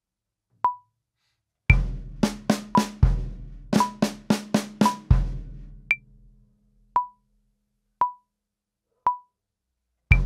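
Metronome clicking about once a second, a higher click on each bar's first beat, under a drum kit playing one bar of a slow fill at 57 BPM: a bass drum on beat one, runs of snare strokes with a flam, and bass-drum accents, ringing out before the click carries on alone; the next run starts near the end. The snare triplet is played as two sixteenth notes, a mistake in this slow version.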